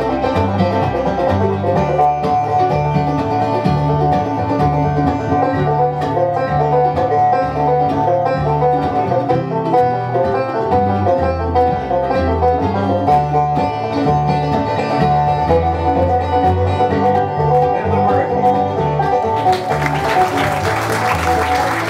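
Live bluegrass band playing an instrumental break, five-string banjo to the fore over acoustic guitar and upright bass. Audience applause breaks out over the music near the end.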